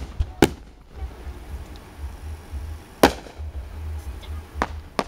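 Aerial firework shells bursting: a sharp bang about half a second in, a louder one about three seconds in, and two more close together near the end, over a steady low rumble.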